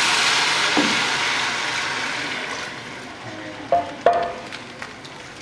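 Water poured from a cup into a hot pot of fried rice and chicken for pilau, sizzling loudly as it hits the pan; the hiss dies away over the next few seconds as the water settles.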